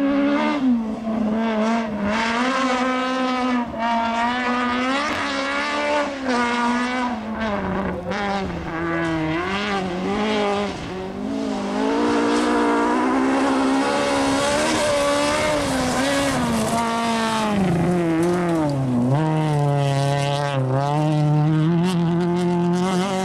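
Rally car engine at full throttle on a gravel stage, its pitch repeatedly climbing through the revs and dropping at each gear change and lift.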